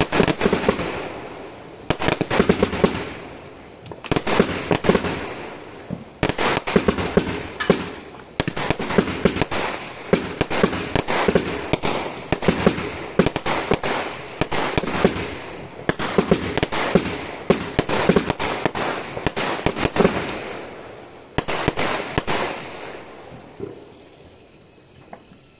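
Aerial fireworks bursting overhead one after another, about every two seconds, each burst followed by dense crackling. The volley thins out and dies away near the end.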